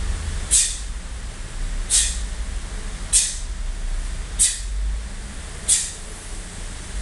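A taekwondo student performing an ITF pattern, with a short sharp hiss as each technique is delivered, about every 1.3 seconds, over a steady low room hum.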